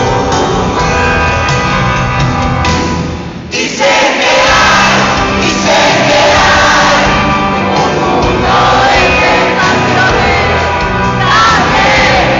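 Live rock band with guitars and keyboards playing, a lead voice singing and crowd voices mixed in. About three seconds in the music drops away briefly, then the singing comes back in.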